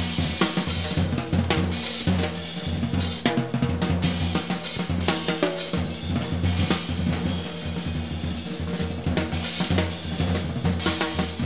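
Improvised jazz drum kit played busily, with irregular snare, bass-drum, rimshot and cymbal strokes, over a sustained bass line.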